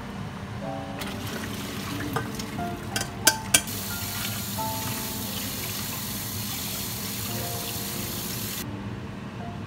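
Kitchen tap running water over boiled spinach in a metal strainer in the sink to cool it, a steady splashing hiss that stops suddenly near the end. A few sharp knocks come just before the water starts.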